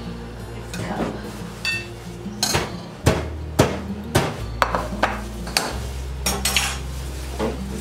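Metal serving spoon knocking against ceramic plates and a metal cooking pot as rice and peas are dished out: a string of sharp clinks and knocks, coming thickest from about two and a half seconds in.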